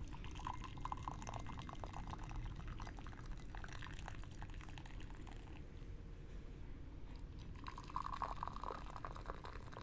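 Liquid being poured and splashing, with scattered small clicks and two brief pouring tones, one about half a second in and one about eight seconds in.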